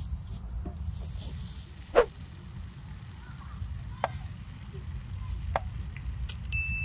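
Food frying in a steel pan over a fire, with a steady low rumble under the sizzle and four sharp clanks of a metal utensil against the pan, the loudest about two seconds in.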